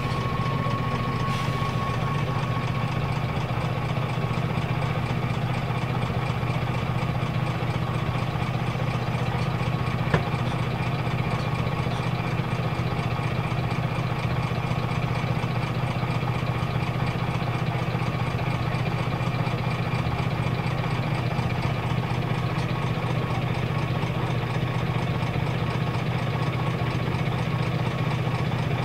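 Diesel engine of a Scania L94UB city bus, a 9-litre five-cylinder, idling steadily as heard from inside the passenger cabin, with one short click about ten seconds in.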